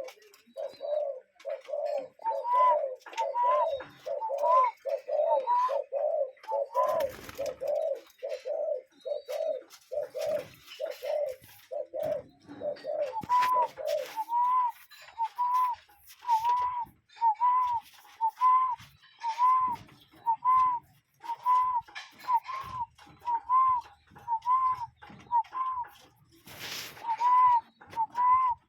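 Two birds calling over and over. A low two-part hooting call repeats a little faster than once a second and stops about halfway through. A higher single arched note repeats about once a second throughout.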